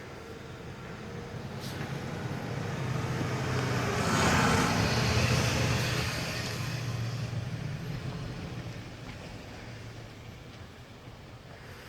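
A truck driving past. Its low engine hum and a rush of noise swell to a peak about four to six seconds in, then fade away.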